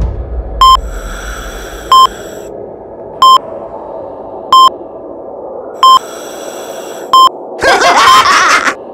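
A short electronic beep repeating about every 1.3 seconds over a low hum, then a loud rising, rushing sound effect near the end.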